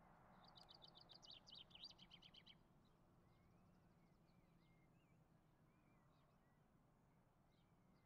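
Faint songbird trill, a quick run of repeated high notes lasting about two seconds, followed by a few scattered faint chirps over near silence.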